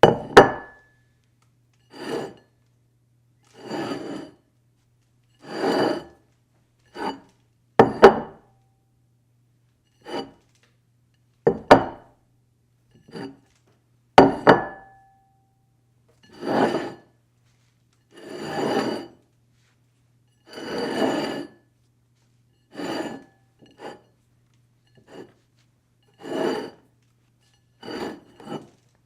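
A plate slid and scraped across a table in about twenty short separate pushes, one every second or two. A few pushes start with a sharp knock that leaves the plate ringing briefly.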